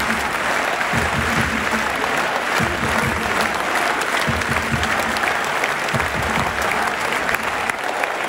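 Large tennis stadium crowd applauding steadily, with scattered voices in the crowd.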